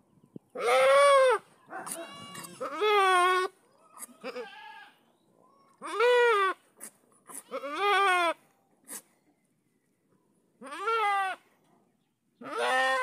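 Goat bleating repeatedly: about seven short, high calls, each under a second and rising then falling in pitch, with short pauses between them.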